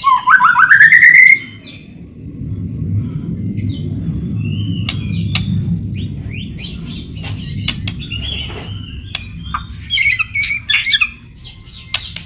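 White-rumped shama (murai batu) singing: a loud rising whistle at the start, then scattered short whistles, chirps and clicks, with a burst of rapid chirping near the end. A low rumble runs underneath.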